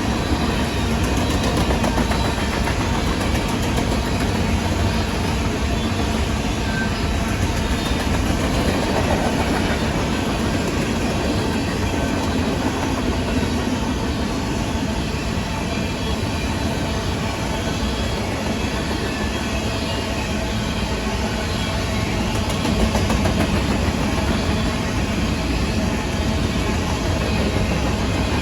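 A CSX freight train carrying grain, its loaded covered hopper cars rolling past with a steady rumble of wheels on the rails.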